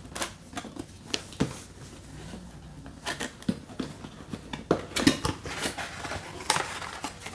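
Cardboard box being handled: it scrapes and taps as it is turned over, then its flaps are pried open with irregular clicks and rustles, busier from about three seconds in.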